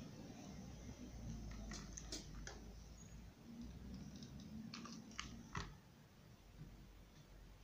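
Faint rustling and small clicks of a satin ribbon bow being handled and fitted onto a headband, in a few short clusters about two seconds in and again around five seconds in.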